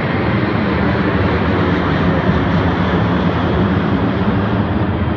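Boeing 737-800 airliner passing overhead on its climb-out after take-off, its two CFM56-7B turbofan engines giving a loud, steady rush of jet noise.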